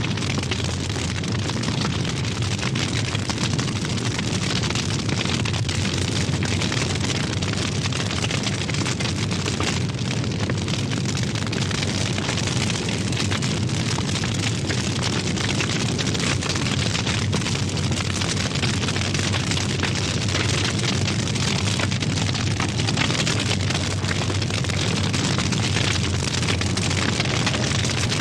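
A large fire burning steadily, with a low rumble under dense, continuous crackling.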